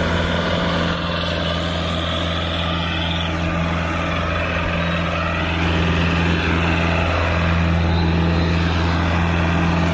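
Mahindra 575 tractor's diesel engine running steadily under heavy load while pulling a trolley piled with sugarcane.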